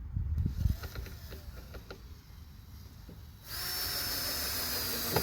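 A few knocks and clicks, then about three and a half seconds in a power drill starts running with a steady whine, driving screws. It gets louder near the end.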